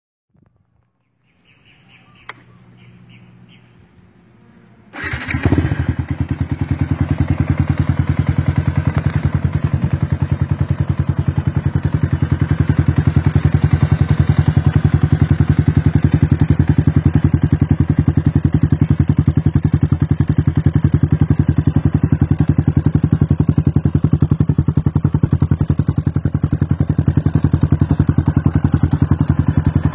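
Motorcycle with a Yoshimura carbon-fibre aftermarket exhaust being started: a faint hum and a click, then about five seconds in the engine fires and settles into a steady, evenly pulsing idle through the exhaust.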